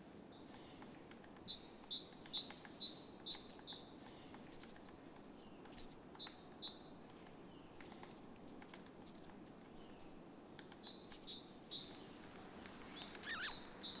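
Faint bird calls: bouts of short, high chirps, several in quick succession about three a second, coming about one and a half, six and eleven seconds in, over a faint outdoor hiss.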